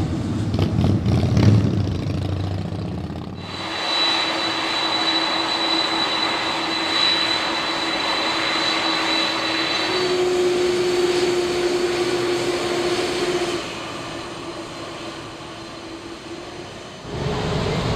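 A business jet's engines rumbling on its takeoff roll. After a cut, the turbofan engines of a KLM Boeing 747 run with a steady whine whose pitch steps up about ten seconds in.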